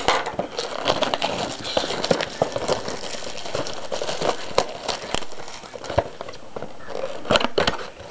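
Plastic wrapping crinkling and tearing and cardboard being handled, with many small clicks and crackles, as a sealed box of trading cards is opened.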